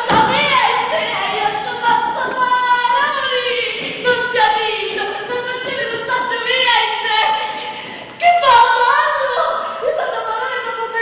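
A woman singing unaccompanied in a high voice, with wavering held notes and sliding pitch; it jumps louder a little after eight seconds in.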